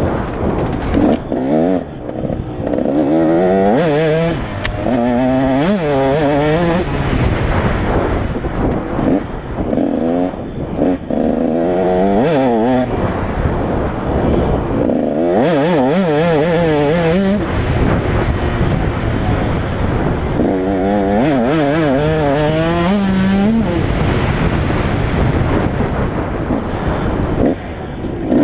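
Dirt bike engine under way, revving up in rising pitch and dropping back again and again as the throttle is opened and shifts or lifts come.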